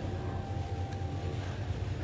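A steady low rumbling drone with a faint thin tone in it for about a second.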